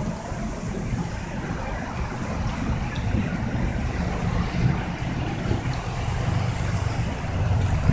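Steady low rumble of road traffic, with wind blowing on the microphone.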